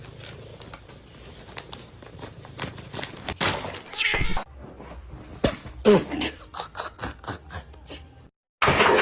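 A cat meowing a couple of times in the middle, among scattered clicks and knocks.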